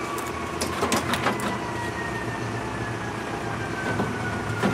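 A few light knocks and rubs as a radiator and its hose are worked down into a car's engine bay, over a steady low hum and a faint thin tone that slowly falls in pitch.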